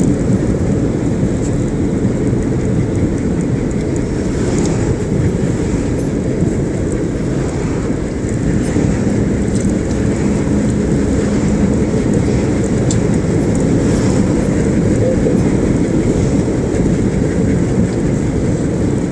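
Steady low rumble of a car driving at road speed, mostly tyre and road noise with engine hum, heard from inside the cabin.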